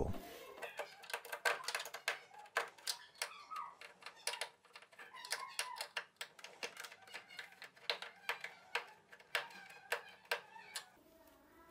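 Screwdriver backing out the stand screws from the TV's plastic back panel: a run of light, irregular clicks and ticks, several a second, stopping near the end.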